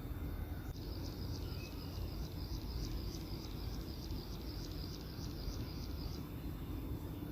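An insect chirping in a high, even rhythm of about three to four chirps a second, starting about a second in and stopping near the end, over a steady low hum.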